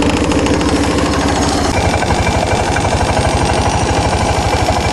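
Suzuki Burgman 400 scooter's single-cylinder engine idling. Steady at first; a little under two seconds in the sound changes to a coarser, evenly pulsing idle.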